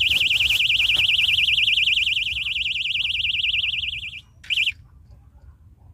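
Electronic bite alarm on a fishing rod sounding a loud, rapidly warbling high-pitched tone, the signal of a fish taking the bait. It cuts off about four seconds in, followed by one short chirp.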